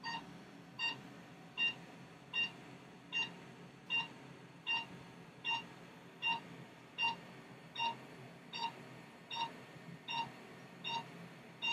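Secret RF microneedling machine beeping at an even pace, a little more than once a second. Each short beep marks a radio-frequency needle pulse as the handpiece is stamped step by step along the neck.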